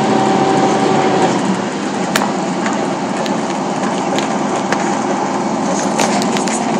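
Airport apron bus driving, heard from inside the cabin: engine and tyre noise with frequent rattles and clicks from the bus body and fittings. A steady hum stops about a second in.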